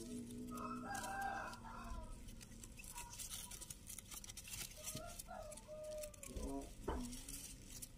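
A rooster crowing in the background: one drawn-out call at the start that fades after about two seconds, and a second shorter call about six and a half seconds in.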